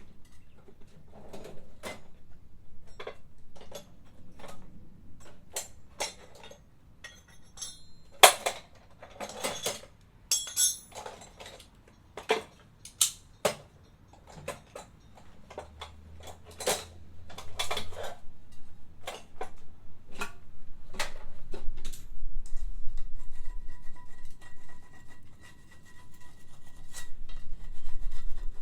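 Metal hand tools and parts clinking and knocking, many separate sharp strikes, some ringing, while a scooter's front wheel and tyre are being worked on. A faint steady hum comes in about two-thirds of the way through.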